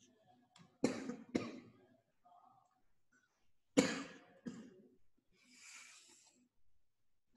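A person coughing: two double coughs about three seconds apart, followed by a short breathy sound.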